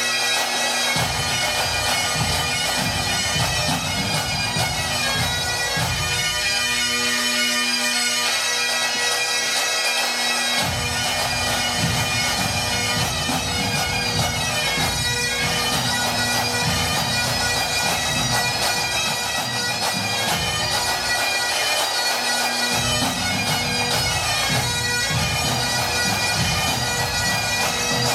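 Pipe band playing: Highland bagpipes sound a tune over their steady drones, with the band's drums coming in about a second in and dropping out twice for a few seconds.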